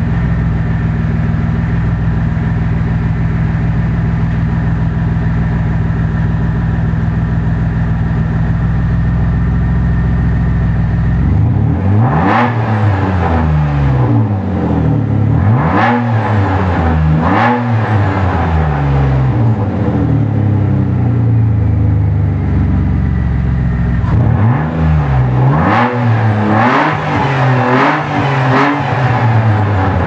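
1999 Citroën XM's 24-valve V6 engine, running with no exhaust past the catalytic converter and no air filter, idling steadily for about eleven seconds and then revved again and again in sharp blips that rise and fall, with quicker blips near the end.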